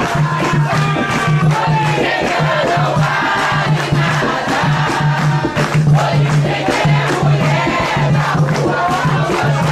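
Many voices singing and calling together over rhythmic percussion, with a low pulse beating evenly and sharp hits throughout: an Umbanda ritual chant with its drumming.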